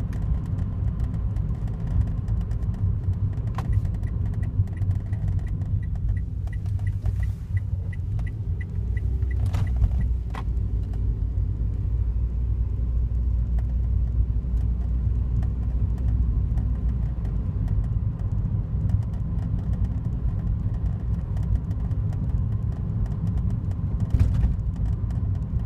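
Daihatsu Wake kei car running with a steady low rumble. A few seconds in, a run of quick, even ticks lasts about six seconds, and a few sharp clicks sound around the middle and once near the end.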